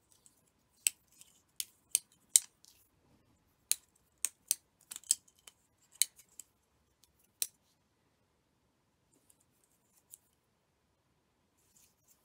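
Sharp, irregular snaps of fine tatting thread being pulled taut as double stitches are snugged into place with a plastic shuttle. About a dozen crisp clicks in the first half, then a few faint ones near the end.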